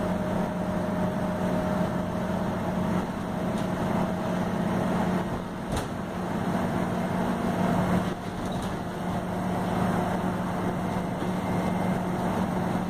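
Scania single-deck bus under way, heard from the rear saloon: a steady engine drone with road and body noise. There is one sharp click just before the middle.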